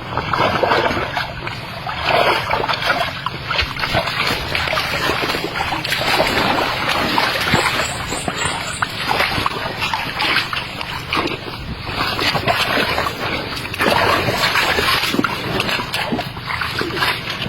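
Water splashing and sloshing in irregular surges, with much crackling spatter, over a steady low rumble.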